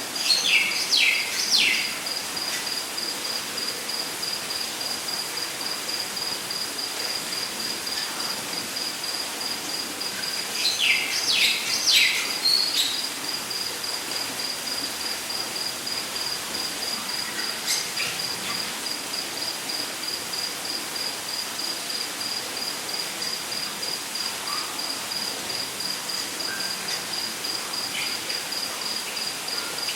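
Rainforest ambience: an insect trilling steadily at a high pitch in rapid, even pulses, over a constant hiss. A bird breaks in twice with a few quick down-slurred calls, once at the start and again about eleven seconds in.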